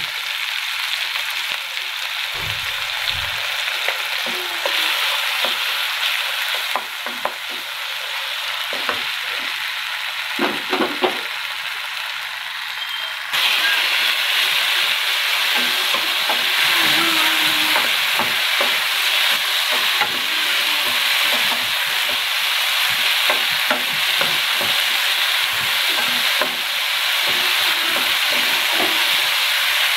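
Chopped tomatoes, green chillies and ginger-garlic paste sizzling in hot oil in a non-stick frying pan, stirred with a wooden spatula that clicks and scrapes against the pan. The sizzle turns suddenly louder about halfway through.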